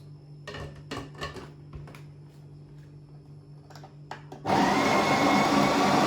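A few faint knocks, then about four and a half seconds in a SHARDOR conical burr electric coffee grinder starts suddenly and runs steadily, grinding coffee beans on its coarse French press setting.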